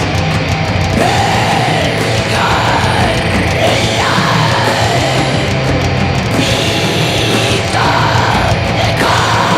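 Raw black metal recording playing loudly and without a break: a dense, harsh wall of band sound.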